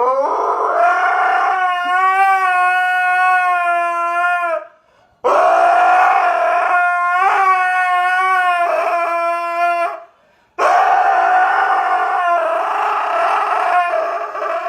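A dog howling: three long, wavering howls, each cut off abruptly.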